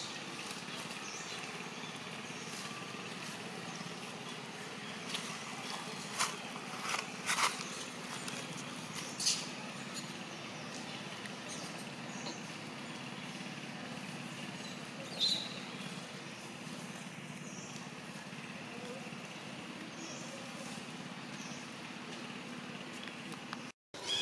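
Steady low outdoor background hum with a handful of short clicks or rustles about five to nine seconds in and one brief high squeak about fifteen seconds in; the sound cuts out for a moment near the end.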